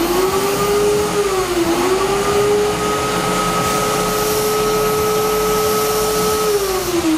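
Vacuum cleaner sucking leftover coffee grounds out of a grinder's outlet chute, its motor whining steadily. The pitch dips briefly about a second and a half in, and near the end it falls as the motor winds down.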